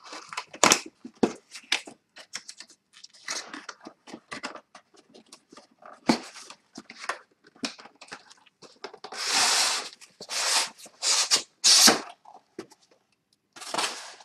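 Cardboard keyboard box being opened by hand: tabs and flaps clicking and crackling, then a few longer rustling swishes near the end as the plain brown inner carton is slid out of the printed outer sleeve.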